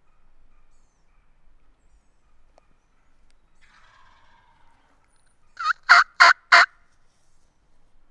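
Male wild turkey gobbling once, loud: a quick rattling run of four notes lasting about a second, a little past the middle. A faint call comes a couple of seconds before it.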